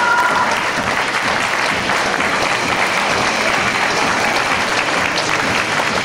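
Theatre audience applauding steadily at the end of a stage illusion.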